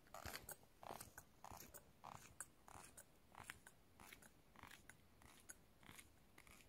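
Faint, irregular crunching footsteps of a hiker in boots on a wet road shoulder, about two a second, growing fainter as he walks away.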